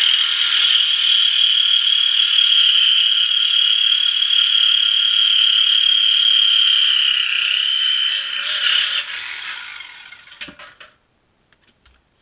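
Handheld cut-off grinder cutting through a car's steel exhaust pipe to cut the muffler out. A steady high whine with a hiss dips briefly in pitch under load, then stops after about nine seconds and spins down, followed by a single knock.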